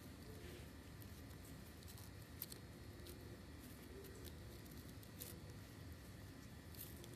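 Faint soft brushing of a toothbrush over a kitten's fur, with a few light clicks.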